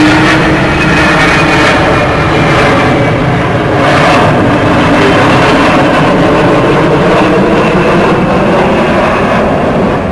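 Loud, steady jet noise from an Avro Vulcan bomber's four Rolls-Royce Olympus turbojets as it flies a banking pass overhead, easing slightly near the end.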